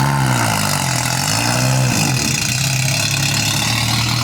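Off-road race car engine, its note rising and falling twice, then holding steady as the car pulls away.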